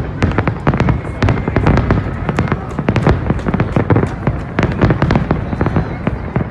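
Fireworks display: a dense, unbroken barrage of bangs and crackles, several a second, over a low rumble.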